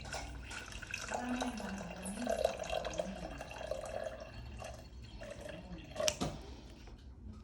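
Liquid trickling and dripping into a container, with a sharp knock about six seconds in.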